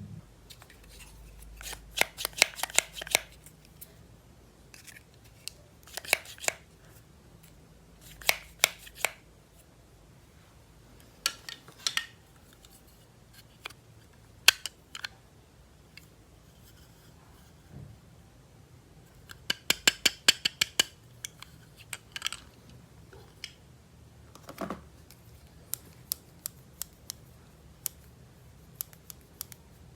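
Scissors snipping through toy packaging in short clusters of quick cuts, with fainter clicks in between.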